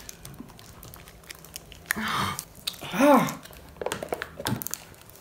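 Plastic shrink-wrap on an instant-noodle cup crinkling and crackling as it is picked at and pulled off, with a rustling burst about two seconds in. A short vocal grunt about three seconds in is the loudest sound.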